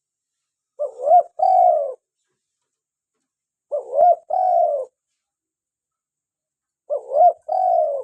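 Spotted dove (tekukur) cooing its song three times, about three seconds apart. Each phrase is two short rising notes followed by a longer drawn-out coo.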